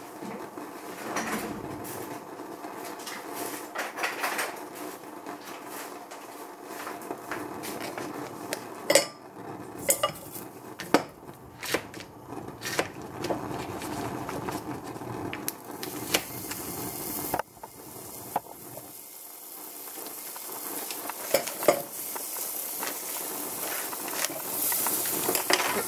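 Scattered clinks and sharp knocks of utensils and butter pieces against a stainless steel saucepan, the sharpest about a third of the way in. Toward the end a rising hiss comes in with the rustle of the butter's paper wrapper.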